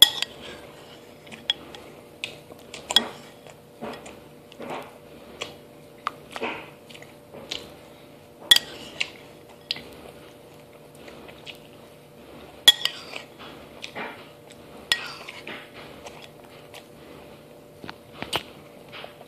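Spoon clinking against a cereal bowl at irregular intervals while strawberry frosted mini-wheats are chewed and crunched between the clinks; two sharper clinks stand out, about a third of the way in and about two thirds of the way in.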